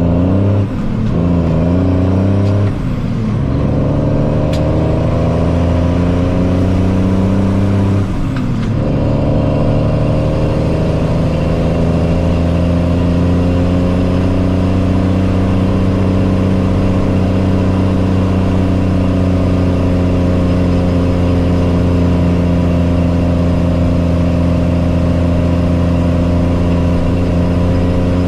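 Truck engine pulling through a few gear changes in the first several seconds, with the pitch dropping at each shift, then running at a steady speed.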